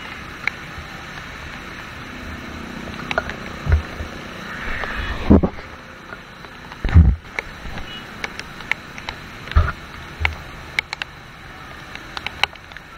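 Rain and traffic on a wet multi-lane city road: a steady hiss of rain and tyres on water, with frequent sharp ticks and a few low thumps, the loudest about five and seven seconds in.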